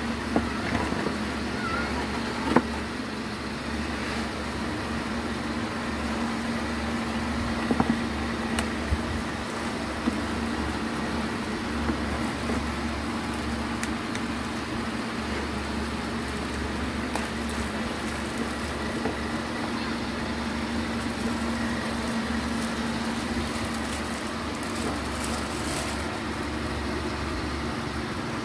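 Laptop packaging being handled: a few sharp clicks and knocks from the moulded pulp tray and plastic wrap, over a steady low drone.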